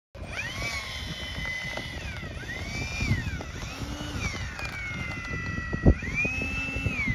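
Arrows Marlin 64mm electric ducted fan jet whining as it taxis, the pitch rising and falling repeatedly with throttle changes. A low rumble runs underneath, with one short low thump about six seconds in.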